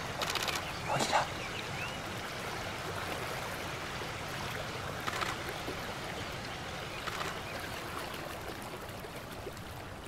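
Steady rush of running water, with a few short chirps and clicks over it about a second in and again around five and seven seconds.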